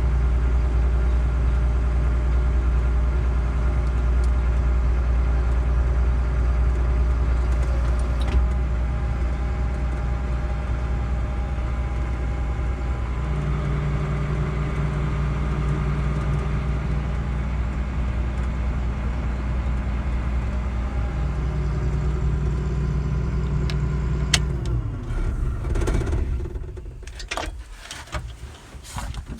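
Combine harvester engine running steadily, its note shifting for a while midway, then shut off about 24 seconds in, followed by a few clicks and knocks.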